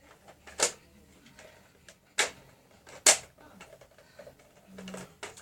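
Foam darts being pushed one by one into a Nerf 10-dart plastic magazine: three sharp plastic clicks about a second apart, with fainter ticks and handling rustle between them.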